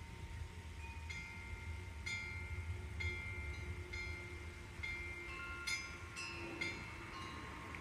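Chimes ringing: several metal tones at different pitches struck at irregular moments, about once a second, each fading slowly, over a steady low rumble.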